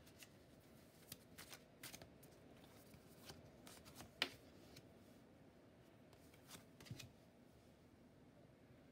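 Tarot cards being handled on a wooden table: drawn off the deck, flipped and laid down. Faint, scattered card snaps and taps, the sharpest about four seconds in.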